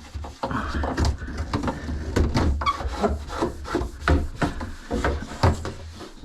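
Repeated rubbing and scraping against wood, broken by irregular knocks.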